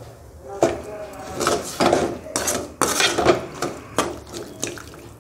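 A ladle stirring a thin, watery curry in a metal kadai, scraping and clinking against the pan in a quick irregular series.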